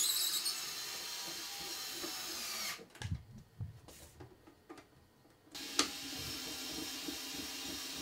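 A small power tool runs for nearly three seconds and stops. A few light knocks follow, then the tool runs again from just past halfway.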